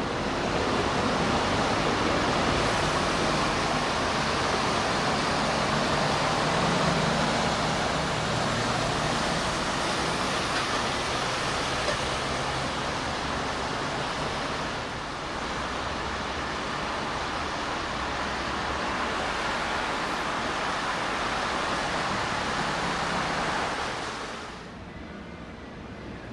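Railway track-field ambience: a steady rushing noise with a faint low hum under it, easing a little near the end.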